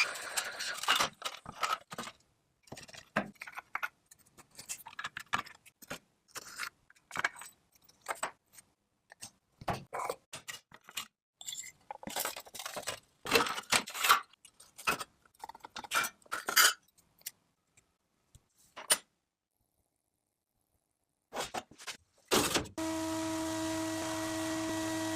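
Metal parts and tools being handled, clinking and clattering in irregular knocks, with a pause of a couple of seconds. Near the end a steady hissing machine noise with a hum starts up.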